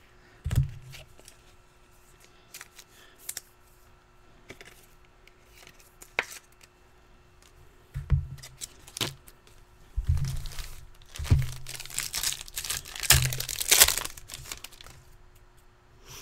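Trading-card packaging being torn open and crinkled by hand, with scattered clicks and a few dull handling thumps. The tearing and crinkling is loudest in a dense stretch late on, about twelve to fourteen seconds in.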